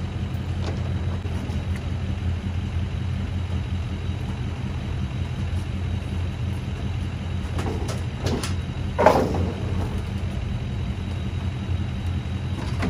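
A vehicle engine idling steadily, with a few short knocks about eight to nine seconds in, the loudest near nine seconds.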